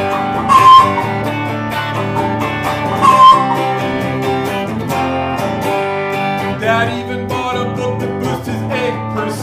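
White Ibanez hollow-body electric guitar strumming chords through an amp as song accompaniment, with two louder high notes standing out in the first few seconds. Singing comes back in near the end.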